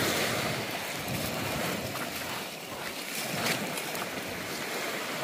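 Steady wash of sea waves and wind.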